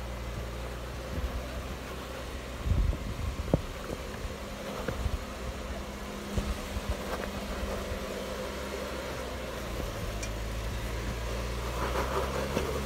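Jeep Wrangler Rubicon engine running steadily at low revs as it crawls over a rock ledge, with a few sharp knocks about three seconds in.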